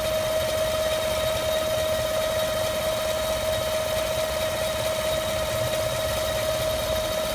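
2015 5.3L V8 idling with a steady, high whine held at one pitch over its low rumble: the intermittent 'vacuum' noise that the owner cannot trace to the belts, fans or accessories, and which he likens to a Roots supercharger.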